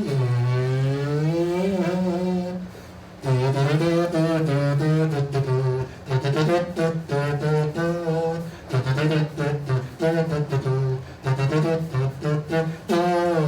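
Homemade slide instrument made of two nested cardboard tubes, blown to play a low tune whose notes slide up and down in pitch as the tubes telescope. A long note with an upward glide comes first, then after a short break a run of shorter notes with brief gaps.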